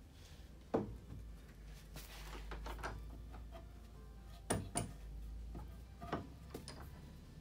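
Wooden board and Will-Burt Versa Vise being handled: a sharp knock about a second in, a quick double clunk past the middle and another knock soon after, with lighter clicks and rubbing between, as the board is set in the jaws and the vise handle turned.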